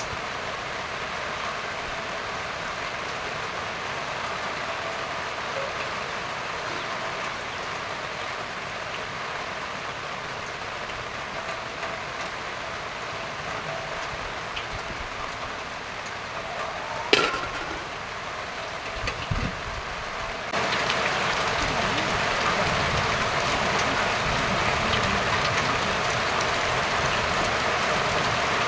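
Steady rain falling and dripping, with one sharp knock a little past halfway. The rain steps up louder about three-quarters of the way in.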